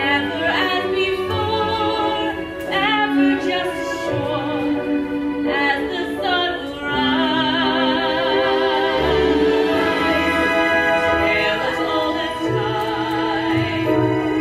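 Orchestral show music with a singing voice, long notes held with vibrato over sustained low accompaniment.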